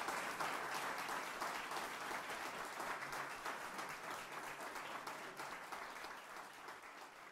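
Audience applauding, many hands clapping, fading steadily away.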